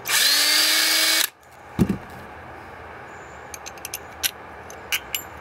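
Electric drill running for just over a second, its motor pitch rising as it spins up, while a drill bit opens up a fastener hole in a metal bracket. It stops abruptly and is followed by a thud and light metal clicks.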